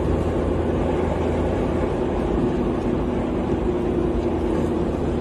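Car engine running with a steady drone and low rumble, heard from inside the cabin.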